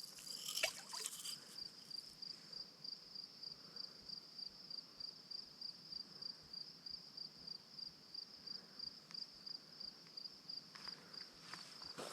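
An insect chirping steadily in a high, even pulse, about three chirps a second, with a few faint clicks near the start and near the end.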